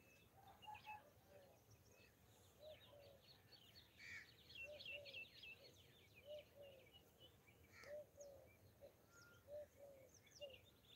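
Faint birdsong over a quiet outdoor background. A low two-note call repeats every second or two, with higher twittering chirps from other birds, busiest around the middle.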